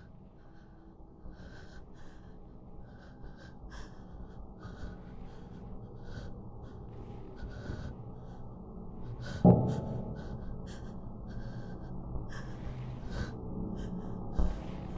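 A person's quick, heavy breathing close to the microphone, in short puffs about twice a second. A single loud thump comes about nine and a half seconds in, and a smaller one near the end.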